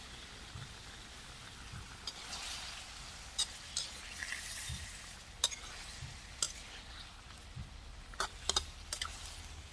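Metal spatula stirring and turning tuna tail pieces in a steel wok of braising sauce, with sharp clinks and scrapes of metal on the wok, several bunched together near the end, over a faint sizzle.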